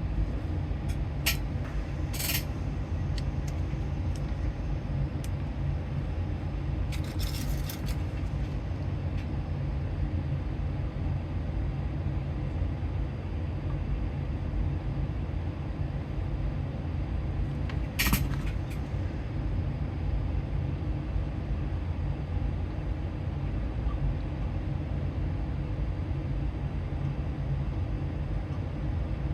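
A steady low hum runs throughout, with a handful of short, sharp clicks and taps from small tools being handled at the bench, the clearest about 18 seconds in.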